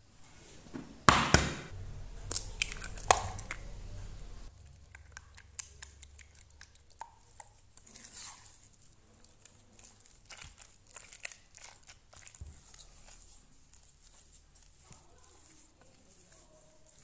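An egg cracked into the saucepan, with sharp knocks and crackling in the first few seconds. Then a silicone spatula mashes the egg into thick choux dough, making soft wet squishing and small scattered clicks against the pan.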